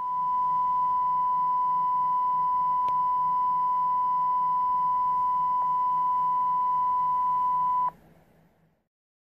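A single steady electronic beep tone held at one pitch for about eight seconds, then cut off abruptly.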